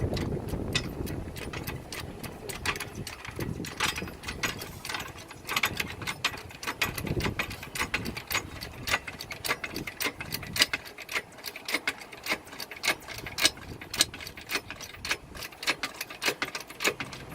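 Car jack being worked to raise the car, giving a long run of irregular metallic clicks and knocks, several a second, coming thicker from about five seconds in.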